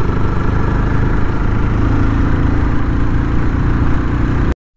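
Motorcycle engine running steadily under way, a low even hum with a hiss above it. It cuts off abruptly near the end.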